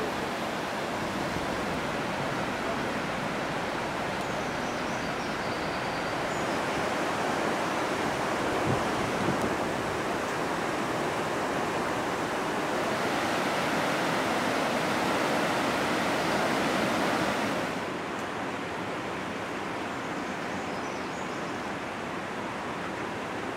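Steady rushing of a swollen river in flood. About eighteen seconds in it becomes a little quieter and duller.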